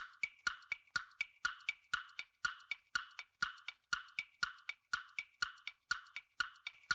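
Countdown-timer ticking sound effect: a fast, even tick-tock of about four ticks a second, alternating two pitches, marking the time to answer.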